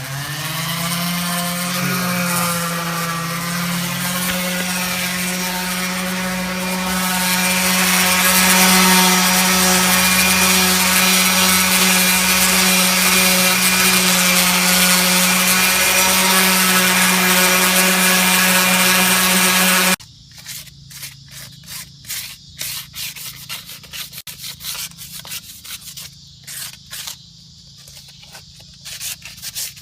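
Orbital sander spinning up and running steadily against the rusted metal of a wheel rim, then cutting off suddenly about twenty seconds in. After that come irregular scraping strokes on the metal.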